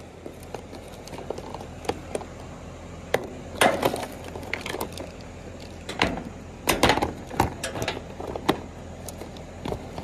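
Hard plastic tool case and digital refrigerant manifold gauge set with its hoses being handled: a scatter of clicks, knocks and light clatter, busiest around the middle, over a steady low hum.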